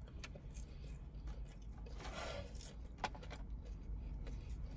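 Faint chewing with small clicks and a short rustle as fries and chicken nuggets are picked up from their boxes, over a low steady hum.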